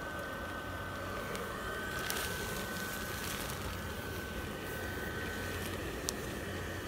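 Inflatable Christmas tree's base blower fan running steadily with a thin constant whine, inflating the slack fabric.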